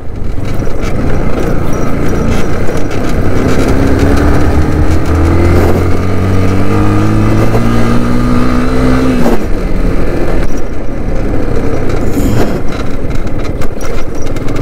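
Motorcycle engine under way, its pitch climbing as it accelerates from about four seconds in until just past nine seconds, then falling back as the throttle closes, over a constant rush of riding noise.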